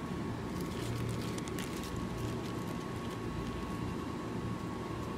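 Steady low hum with a faint high tone, and a cluster of light clicks and rustles from about half a second to two seconds in as fried potato slices are handled on paper towel and in a metal baking tray.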